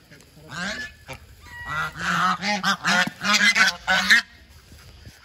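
A flock of domestic geese honking: a rapid run of loud, overlapping calls that stops about a second before the end.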